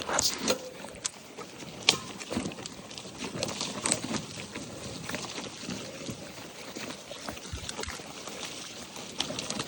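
Mountain bike rolling over a rough dirt trail: a steady rush of tyre and wind noise with irregular clicks and rattles.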